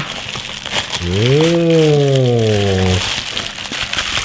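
Plastic bubble wrap crinkling and crackling as it is handled and pulled out of a cardboard box. From about 1 to 3 seconds a man's voice gives a long wordless sound, rising then slowly falling in pitch.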